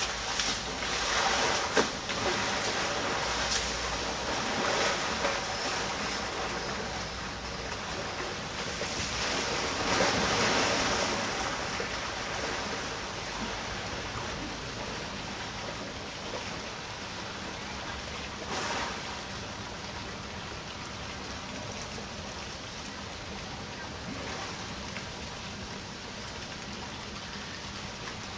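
Water splashing and sloshing as Asian elephants bathe and roll in a pool, with a trunk spraying water near the start. The splashing is loudest in the first ten seconds or so and settles to a gentler lapping after.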